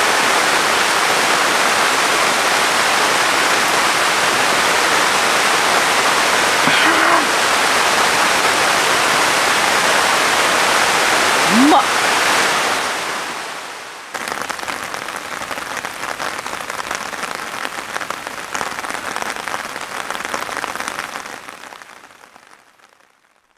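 Heavy rain falling on a tent, a steady hiss that fades away about halfway through, then comes back quieter and fades out near the end.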